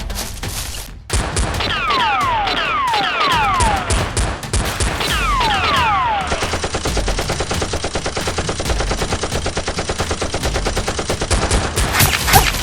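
Gunfire sound effects: scattered shots with several falling whizzes in the first half, then about five seconds of rapid, steady automatic fire, and a loud bang near the end.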